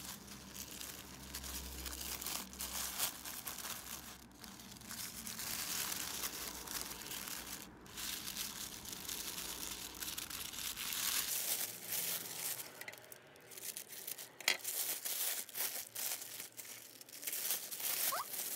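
Tissue paper rustling and crinkling as the pleated, tied layers of a paper flower are pulled apart and fluffed out by hand, with one sharp tick about three quarters of the way through.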